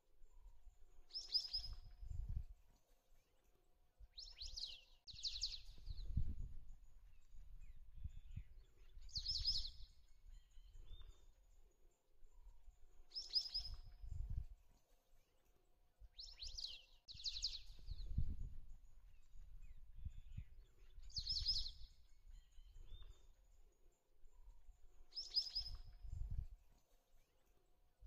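A bird calling over and over, each call a quick cluster of high, falling notes, repeated roughly every four seconds, sometimes twice in a row. Between and under the calls there is a low, gusty rumbling noise.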